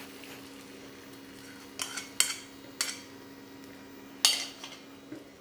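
Metal spoon scraping and knocking against a ceramic bowl as beaten egg is emptied into a frying pan, giving several sharp clinks spread over a few seconds. A steady low hum runs underneath.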